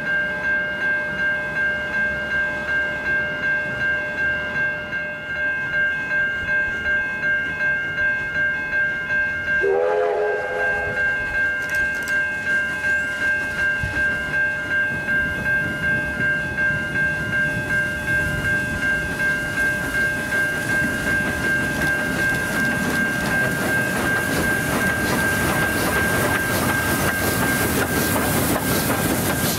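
Level crossing bell ringing at about one and a half strokes a second. A short steam locomotive whistle blast sounds about ten seconds in. The steam train then approaches and passes, and its wheel and rail noise swells to cover the bell near the end.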